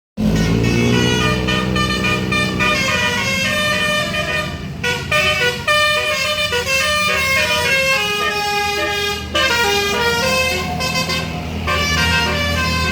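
Basuri telolet horn on a tour bus playing a melody: several musical air-horn notes changing in quick steps, with short breaks twice, over the steady low hum of the bus engine.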